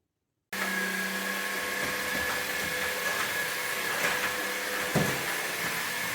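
An electric motor appliance running steadily with a whirring noise and a high whine. It starts abruptly and cuts off abruptly, with a brief knock about five seconds in.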